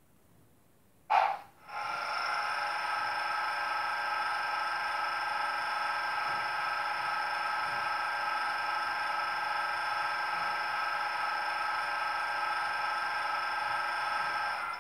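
Sound decoder in an Acme model of an FS E402 electric locomotive, playing sampled sounds of a real E402 through the model's small speaker. A sharp clack comes about a second in. Then the standing locomotive's equipment and motor fans set up a steady hum and whine with several even tones, which cuts off suddenly near the end.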